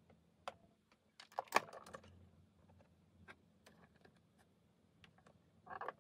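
Light plastic clicks and taps of miniature toy kitchen pieces being handled: a tiny bowl set onto the toy oven's rack, and a quick cluster of clicks near the end as the little oven door is pushed shut.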